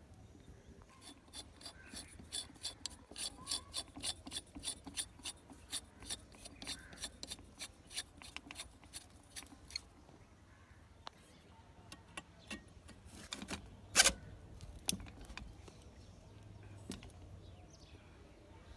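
A hand tool working in a run of even, sharp clicks, about three a second, for most of the first half. Then come a few scattered clicks and one louder knock in the second half.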